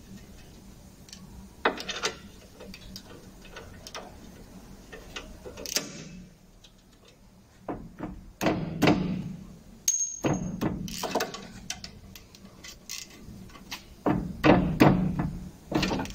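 Hand tools clinking and knocking on the metal of a VW Golf Mk1's front brake hub and caliper carrier, in irregular clusters of clicks and knocks, the loudest near the end, with a brief high squeak about ten seconds in.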